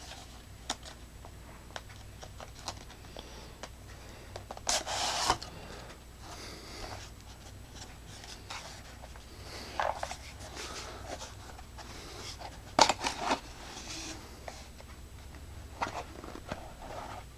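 A small product box being handled and opened: scattered rubbing, scraping and light knocks of packaging, with louder scrapes about five, ten and thirteen seconds in.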